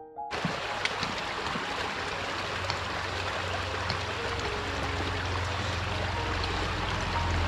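Steady rush of running water, with a motorcycle engine's low hum underneath that grows louder near the end as the bike approaches.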